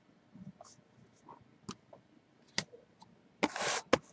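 Hands handling a sealed cardboard box of Strata baseball cards: a few light clicks and taps, then a short scratchy rustle about three and a half seconds in, ending in a sharp click.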